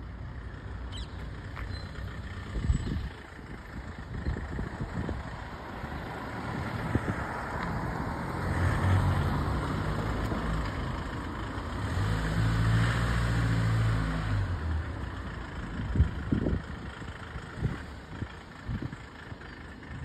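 Street traffic: motor vehicles passing with a low engine hum and tyre noise that swells and fades twice, about eight seconds in and again, louder, about twelve seconds in. A few short thumps stand out over the hiss.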